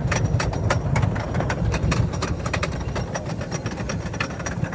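Wooden roller coaster train running on its track: a steady low rumble with rapid, irregular clacking.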